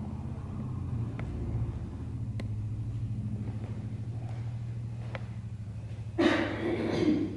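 A steady low rumbling hum with a fluttering texture, a few faint clicks, and about six seconds in, a second-long rustle that is the loudest sound.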